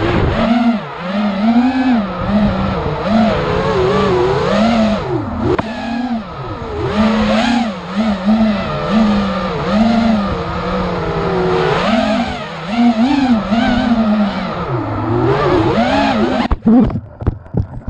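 Racing quadcopter's electric motors and propellers whining, the pitch rising and falling quickly as the throttle is worked. Near the end the motor sound drops out, with a few sharp knocks.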